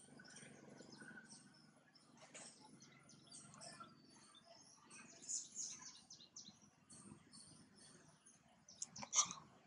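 Faint high-pitched chirping calls over a low outdoor background, with a cluster about five seconds in and a short, sharper call near the end.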